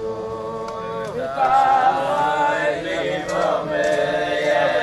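A group of men singing a slow Jewish melody together, holding long notes that glide from one pitch to the next.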